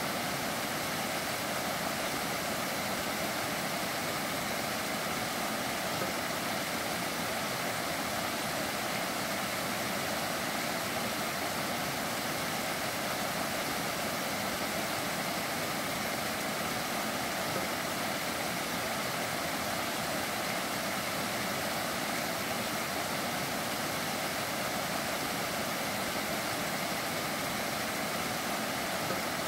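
Spring-fed stream running down a hillside over small cascades: a steady, even rush of water.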